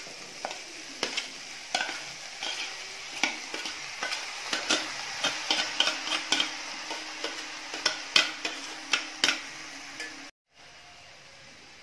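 A steel spoon scraping and clinking against a stainless steel bowl as cooked rice is tipped into a hot pan, over a steady frying sizzle of vegetables. Near the end the sound cuts out for a moment and comes back quieter.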